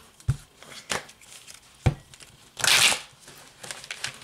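A deck of cards being shuffled by hand: a few soft knocks of the deck, then a short loud riffling rush of cards about two and a half seconds in.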